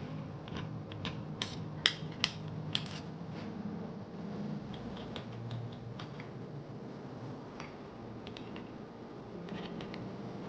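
Scattered light clicks and taps of small hard parts being handled, with three sharper clicks about two seconds in.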